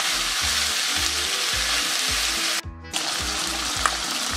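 Pieces of chicken skin frying in a pan over medium heat, a steady sizzle as their fat renders out. The sizzle drops out for a moment about two and a half seconds in, then resumes.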